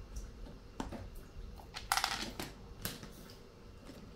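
Plastic casing of a Nikai steam iron being handled and prised apart by hand, giving a few scattered clicks and knocks, the loudest a short clatter about two seconds in.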